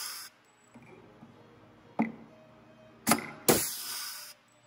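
Rivet gun setting blind rivets in aluminium body panels: a sharp snap about two seconds in, then another snap about a second later followed by a burst of hiss that lasts most of a second.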